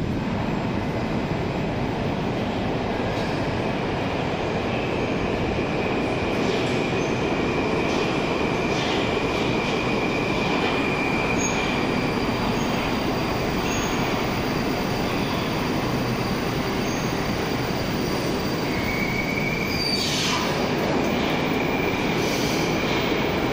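Moscow metro train pulling into the station and braking to a stop: a steady heavy rumble of wheels on rail, with a thin high brake-and-wheel squeal about a third of the way in and again near the end.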